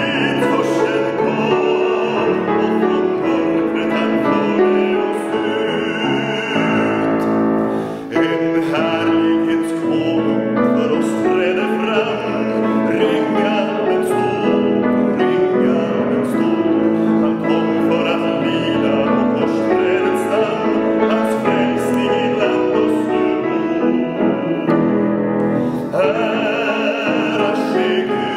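A man singing a Swedish Advent hymn in sustained, wavering phrases, accompanied by a grand piano.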